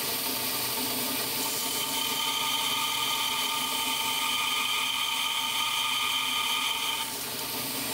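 Belt grinder running at a very slow belt speed with a narrow 3M Trizact finishing belt, grinding a small rubber way-wiper piece bonded to a stainless steel strip: a steady hiss, with a thin whine that joins about two seconds in and stops about a second before the end.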